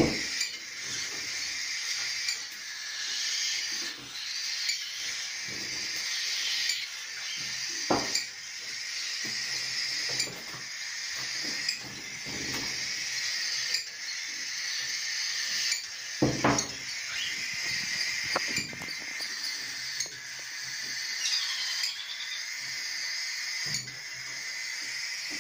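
Budgerigar chicks begging with a constant high chirping chorus as they are hand-fed, with a few sharp clinks of the feeding spoon against a small glass jar, the loudest near the middle.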